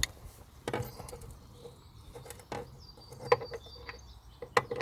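Scattered metallic clicks and knocks of a 17mm socket wrench working loose the coolant drain plug on a mini excavator's engine block.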